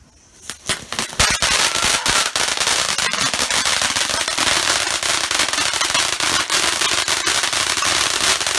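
Consumer firework ('Milky Way 2') going off: a few sharp cracks, then dense, rapid crackling over a loud hiss for about seven seconds.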